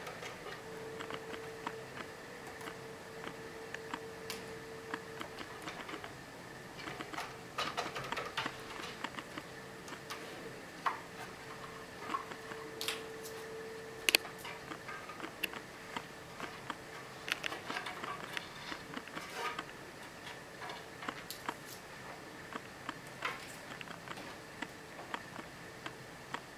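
Scattered light clicks and taps as a cat plays with a feather wand toy on a cat tree: claws and paws on the sisal post and wooden platforms. There is one sharper knock about halfway through, over a faint steady hum.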